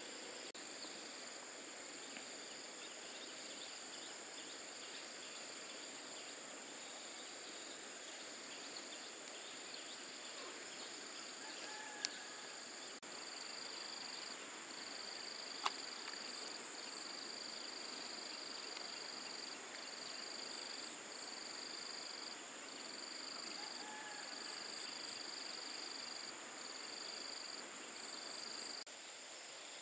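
Insects trilling in the forest: one high steady trill throughout, joined about halfway through by a second, lower trill that comes in bursts of a second or two with short breaks. Two sharp clicks stand out near the middle.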